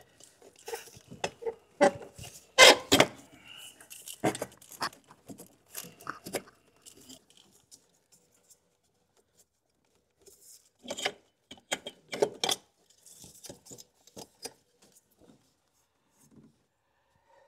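Irregular clunks, clicks and rattles of a Toyota secondary air pump assembly, a plastic-and-metal pump on its bracket, being forced into place among the engine parts with the intake manifold off. The knocks come in a cluster, fall almost silent for a few seconds in the middle, then pick up again.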